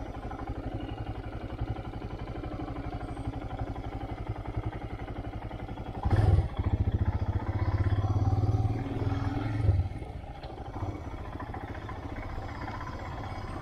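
Motorcycle engine running steadily while being ridden. From about six seconds in it grows louder for roughly four seconds, opening with a sharp knock, then settles back.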